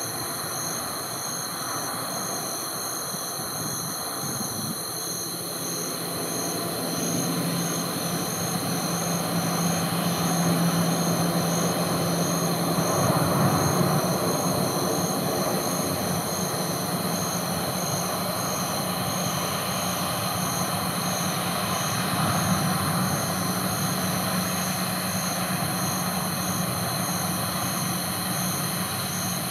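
Boeing 737-800's jet engines running as the airliner taxis and turns onto the runway: a steady engine noise with a low drone. It grows louder from about six seconds in, peaks around thirteen seconds, then holds steady.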